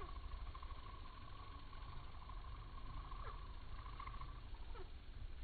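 Hummingbirds at feeders heard in audio slowed four times: two drawn-out, falling chirps about a second and a half apart, over a steady hum that stops about four seconds in, with a low rumble beneath.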